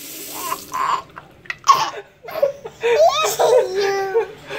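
A baby girl laughing hard in short breathy bursts and gasps, then a longer run of laughter in the second half, with a man laughing along.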